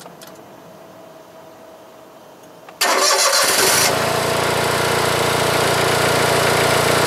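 A Kubota rice transplanter's engine is started about three seconds in, with a brief burst of cranking as it catches. It then runs steadily, warming up to circulate freshly changed oil.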